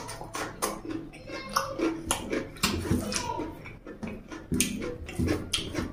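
Close-up wet chewing and lip-smacking of a mouthful of rice and mutton curry eaten by hand, with repeated sharp, irregular smacks.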